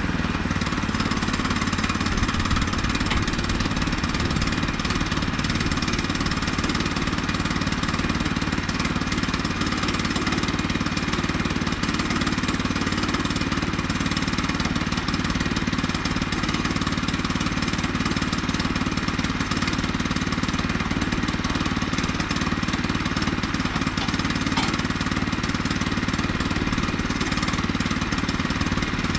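Small gasoline engine of a Woodland Mills HM122 bandsaw mill running steadily at working speed while the band blade cuts a slab off a black oak log.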